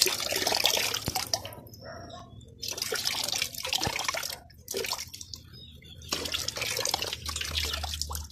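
A thin stream of yeast dissolved in water, poured from a bottle, splashing into plastic basins of water to feed a moina culture. It comes in about four spells with short breaks as the pour moves from one basin to the next.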